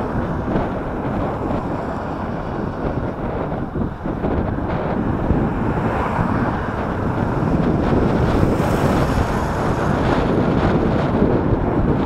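Strong headwind buffeting the microphone of a camera on a moving bicycle: a loud, steady low rumble of wind noise.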